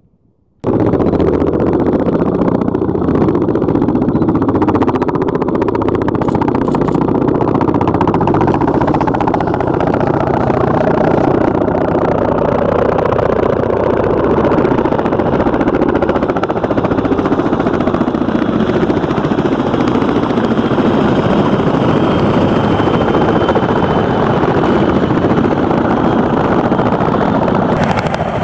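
Several CH-46 Sea Knight tandem-rotor helicopters flying in formation, a loud, steady rotor and turbine noise that cuts in suddenly about half a second in.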